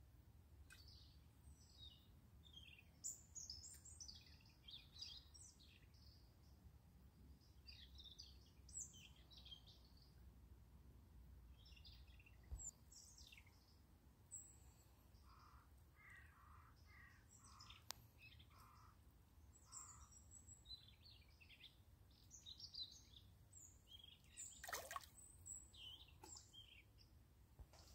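Faint birdsong: scattered short chirps and calls, with a run of lower notes in the middle and a quick falling call near the end, over a low steady hum.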